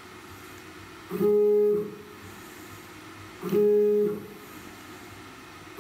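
CNC router's Z-axis stepper motor whining as the spindle is jogged down in 10 mm steps: two short, steady, even-pitched hums of about three-quarters of a second each, one about a second in and one about three and a half seconds in, each starting and stopping abruptly.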